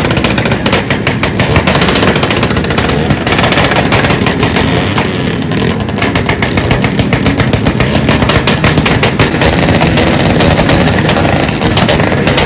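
Many motorcycle and tricycle engines revved hard through loud open exhausts, a continuous dense crackle of rapid pops from the pipes.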